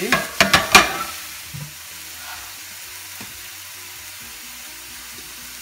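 Extra-firm tofu cubes and shiitake mushrooms sizzling in coconut oil in a stainless-steel frying pan. A few sharp clacks of stirring against the pan come in the first second, then a steady, softer sizzle.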